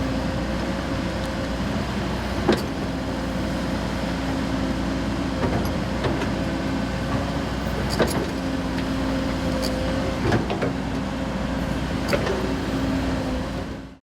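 Construction machine's engine running steadily while its hydraulic work equipment (lift arm, boom, bucket) is operated, with a steady whine and a few sharp metallic clanks as the equipment moves.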